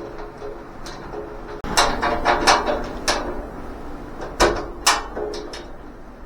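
Sheet-metal welding cart parts being handled during assembly: a run of sharp knocks and rattles about two seconds in, and two more knocks near the end.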